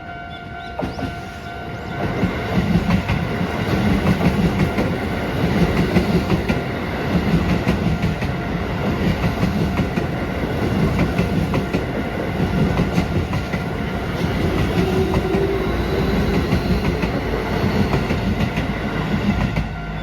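Keio Line electric train running over a level crossing, its wheels clicking rhythmically on the rail joints. It gets loud about two seconds in and drops off near the end, while the crossing's warning bell keeps ringing.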